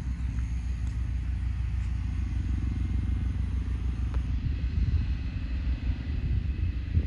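An engine running steadily, its sound low and unchanging.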